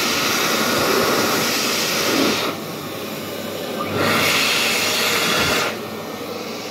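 Hokwang hand dryer blowing a strong, steady rush of air. The rush drops lower about two and a half seconds in, comes back up about four seconds in, and drops again near the end.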